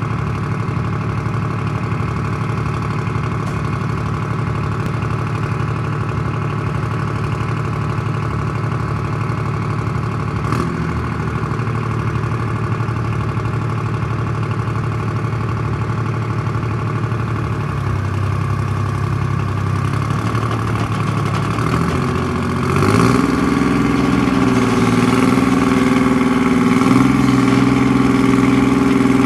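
Foremost Nodwell 240 tracked carrier's engine idling steadily, with one sharp click about ten seconds in. Near the end the engine speeds up and runs louder as the carrier starts to move off.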